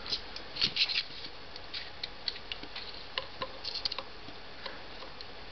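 Light clicks, taps and scrapes of a steel digital caliper being set into the cylinder bore of an ITT LGH-210 air compressor, with a scratchy cluster in the first second and another shortly before four seconds.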